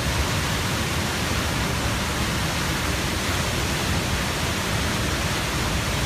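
Steady roar of a waterfall and of the torrent it sends pouring across the road.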